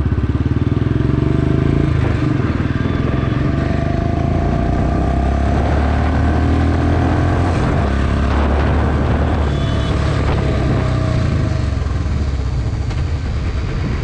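Motorcycle engine running while riding, loud and continuous, its pitch rising and falling with the throttle.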